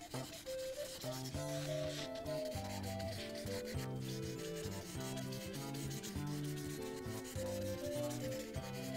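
Prismacolor marker's brush tip scrubbing back and forth on paper as the background is filled in, a steady rubbing scratch. Background music with held notes plays under it.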